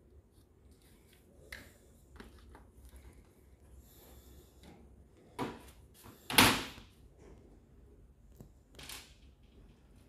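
Plastic clicks and rustles from handling a dishwasher's main control board in its plastic housing and unplugging its wiring harness connectors. Two sharp plastic knocks about a second apart past the middle, the second the loudest, and a smaller one near the end.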